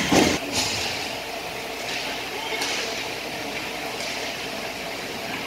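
Ice rink ambience during a hockey game: spectators' voices and steady arena noise, with a loud knock just after the start.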